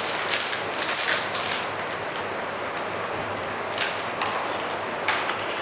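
Plastic piping bag rustling and crinkling as cream is scraped into it with a palette knife, in a run of short crackles over the first second and a half, then a few more near the end.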